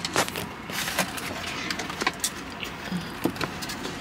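People eating donuts: scattered chewing and lip-smack clicks, with a short hummed "mm" about three seconds in.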